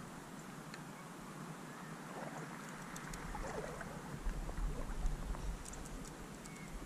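Gentle water sloshing and swishing around a wading angler in a slow river, with low wind rumble on the microphone that swells about four seconds in and a few faint ticks.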